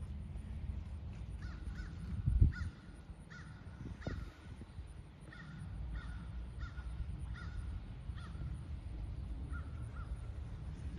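Crows cawing repeatedly, about a dozen short caws in loose runs, over a steady low rumble. A brief loud low thump comes about two and a half seconds in.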